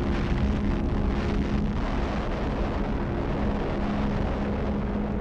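Long rolling rumble of a huge explosion, heaviest in the first two seconds and slowly thinning, with a low steady tone held underneath.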